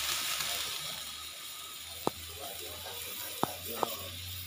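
A large pot of soup at a rolling boil over a wood fire: a steady bubbling hiss, with a sharp snap at the start and three more snaps from the burning firewood about two seconds in and twice near the end.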